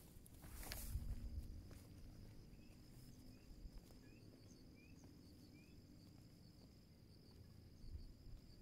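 Faint steady high-pitched drone of an insect, with a row of five short rising chirps about two to six seconds in and a few soft low thumps near the start.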